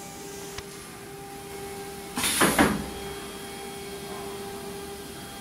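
Automatic-loading CNC router running with a steady hum. About two seconds in comes a loud, half-second burst of compressed-air hiss from its pneumatic system.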